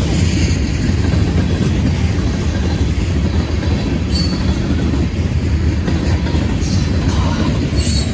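Freight train rolling past close by: a steady, loud rumble of wheels and cars on the rails, with a brief high squeal about four seconds in and again near the end.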